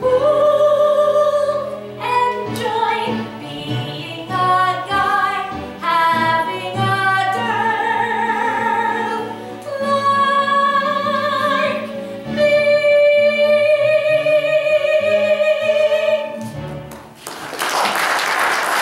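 A woman singing a show tune solo with vibrato, closing on long held notes. Applause breaks out near the end.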